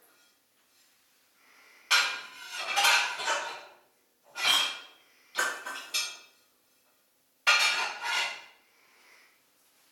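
A run of sudden clattering knocks, each ringing on briefly, coming in several bursts with short quiet gaps between them.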